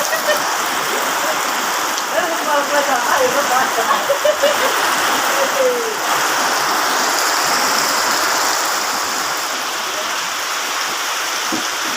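Heavy rain pouring steadily, a dense even hiss, with brief indistinct voices a couple of seconds in.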